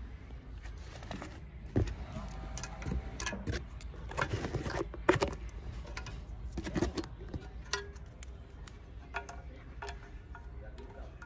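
Scattered metallic clicks and knocks of an air rifle being handled, with one sharp crack about five seconds in.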